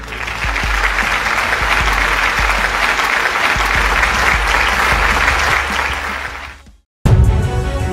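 Crowd applause, a dense clapping that fades out about six and a half seconds in; music starts again just before the end.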